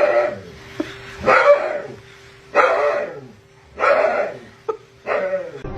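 A dog barking: five barks, each falling in pitch, about one every second and a quarter.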